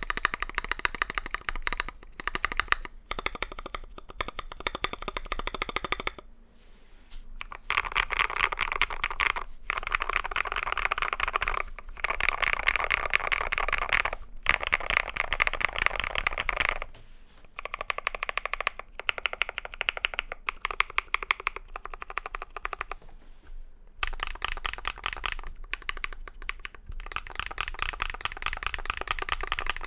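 Typing on a custom IDobao ID80 mechanical keyboard with lubed Holy Panda tactile switches and SA keycaps: fast runs of key clacks, with a few short pauses between bursts.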